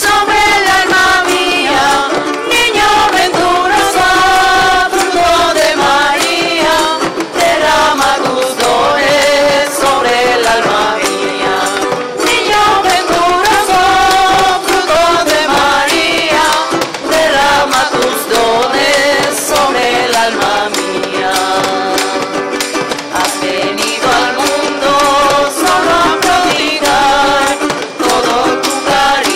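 Church singing group singing a hymn with instrumental accompaniment and a steady percussion beat.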